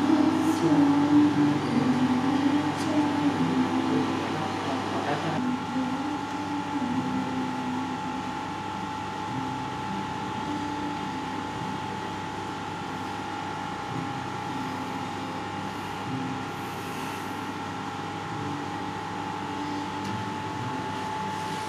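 Steady machine hum with an even high whine, under indistinct voices that fade out about five seconds in.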